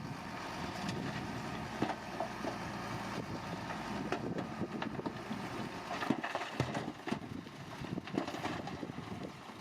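Heavy earthmoving machinery running: a steady diesel engine hum with irregular clanks and knocks, which come more often in the second half.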